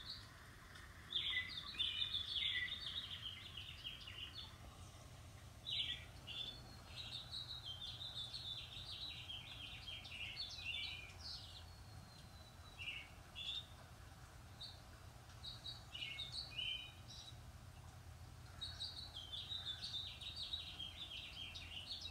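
Small birds chirping and twittering in quick clusters with short pauses, over a faint low steady hum.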